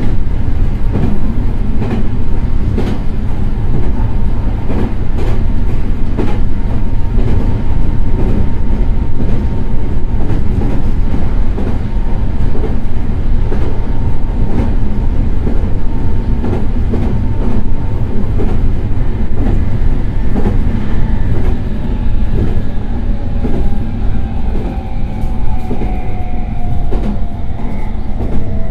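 Meitetsu 3100 series electric train running: a steady rumble with wheels clicking over rail joints and a steady motor whine. In the last several seconds the motor tones glide down in pitch as the train slows.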